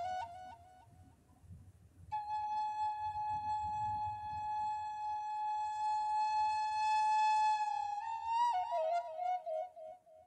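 Background music: a slow solo flute melody, with a brief pause, then one long held note for about six seconds, followed by a few shorter notes near the end.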